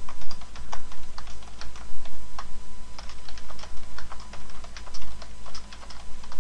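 Typing on a computer keyboard: a quick, uneven run of key clicks, about four a second, as a line of code is entered.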